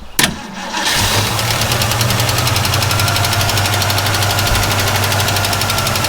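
1967 Mustang's 289 V8 being cranked by the starter: a clunk as the starter engages, then steady, fast, even turning over without firing. Fuel is not reaching the carburetor because the tank ran empty.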